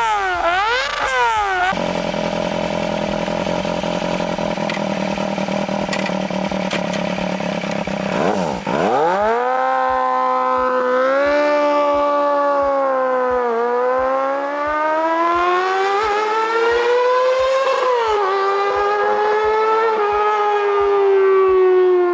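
Yamaha FZR250 four-cylinder motorcycle engine revved rapidly up and down, then held steady at very high rpm with a high, siren-like pitch. About eight and a half seconds in, the pitch drops sharply and another high-revving engine takes over, its pitch rising and falling slowly.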